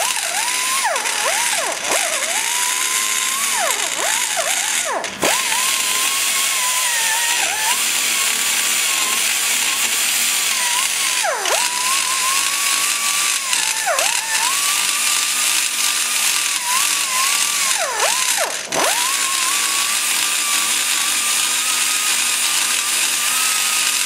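High-speed die grinder running steadily while cutting cast iron, blending the hood around the valve guide in a small-block Chevy cylinder head port; its whine drops sharply in pitch about ten times as the bit is pressed into the metal, then recovers.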